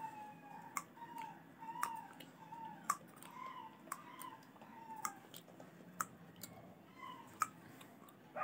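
Puppy crying: a run of short, high, faint cries, two or three a second, some falling in pitch. Sharp clicks come about once a second alongside them.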